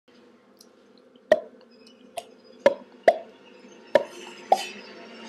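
A person making six hollow popping sounds with the mouth, spaced unevenly about half a second to a second apart, starting a little over a second in.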